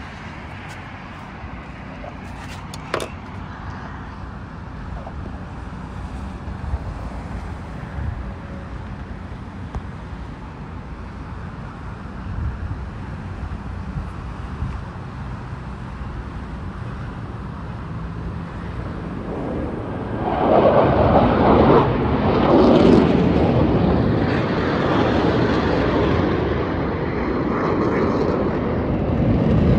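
Jet aircraft flying over in formation: a low steady rumble, then about two-thirds of the way through the jet roar swells sharply and stays loud.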